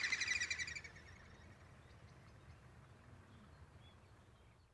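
A rapid, high-pitched bird trill that fades out about a second in, followed by faint scattered chirps over a low outdoor rumble.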